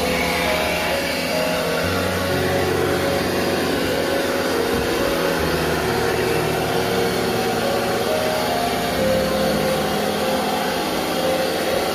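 Pressure washer running steadily while its jet hose flushes a blocked drain pipe, a continuous motor-and-spray noise. Held background tones shift pitch in steps over it.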